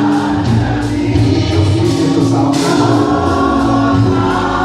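Gospel choir singing held chords over instrumental accompaniment.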